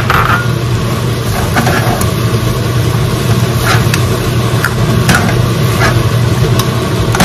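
A metal ladle scraping and clinking against a stone-coated wok as stir-fried shrimp and basil are tossed, a handful of sharp clinks a few seconds in, over a steady low mechanical hum.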